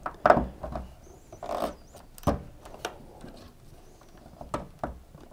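Plastic wiring plugs being handled and pushed back into place inside a tumble dryer: scattered small clicks and rubs of plastic on plastic, with a few sharper clicks, the loudest a little over two seconds in.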